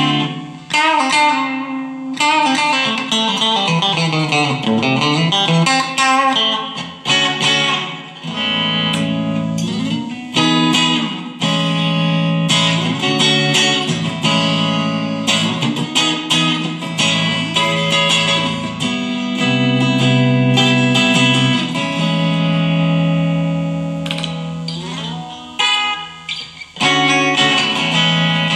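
Chinese copy of a Fender Stratocaster electric guitar played through an amplifier with little gain: runs of single notes with slides, and held chords.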